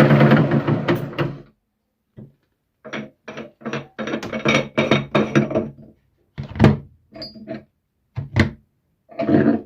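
Electric meat grinder motor running steadily, then switched off and winding down about a second in. After a short pause comes a series of irregular knocks and clunks.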